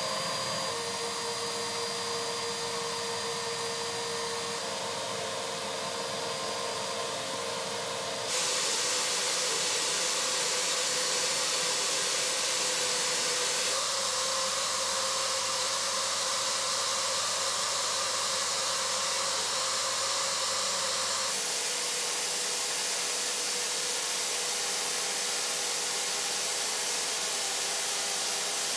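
HEPA-filtered vacuum running steadily, drawing air through a narrow hose held against the paper to pick up brushed-off mould and contain the spores. Its steady rushing hiss changes tone and level abruptly a few times, about 8 seconds in and again later.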